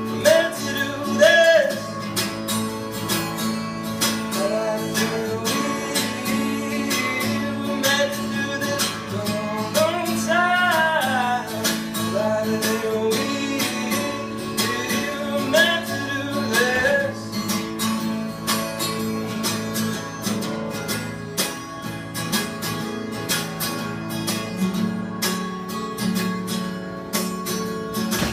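A man singing to his own strummed acoustic guitar. About two-thirds of the way through, the voice stops and the guitar goes on strumming alone.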